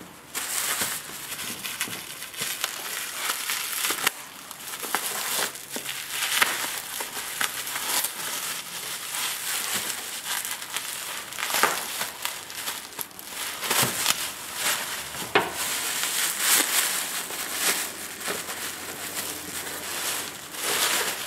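Plastic bubble wrap crinkling and crackling in irregular bursts as it is handled and unwrapped from a box by hand.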